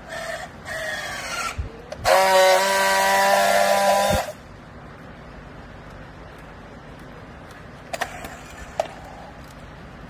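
Battery-powered handheld strapping tool on plastic strap: two short motor runs as it tensions the strap, then a loud, steady whine for about two seconds as it friction-welds the seal. Two sharp clicks follow near the end.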